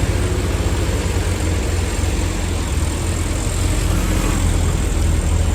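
Heavy diesel truck engine running steadily with a strong, pulsing low drone, under a rush of road and air noise.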